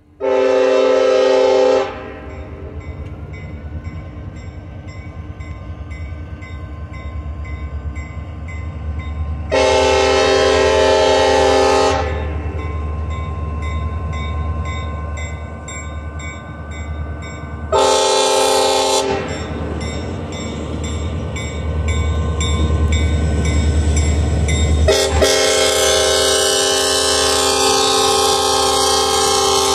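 CSX diesel freight locomotive sounding its multi-tone air horn for a grade crossing in the long-long-short-long pattern: three separate blasts, then a final blast held as it reaches the crossing. Between blasts the rumble of its diesel engine grows louder as it approaches. Near the end the rush and clatter of the train's wheels joins the horn as it passes.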